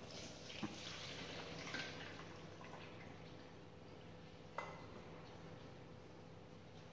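Boiled potatoes and their cooking water tipped from a steel saucepan into a strainer set in a steel bowl: faint pouring and dripping, with a few light metal clinks, the sharpest about four and a half seconds in.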